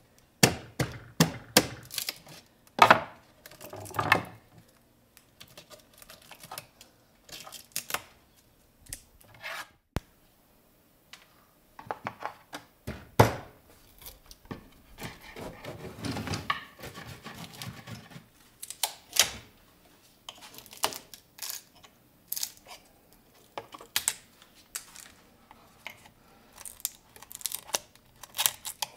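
Irregular clicks, knocks and scraping of hand tools working on a pressed-wood drawer: prying apart its glued and stapled joints and scraping old glue from the seams. The sharpest knocks come about three seconds in and again around thirteen seconds, with a short lull between.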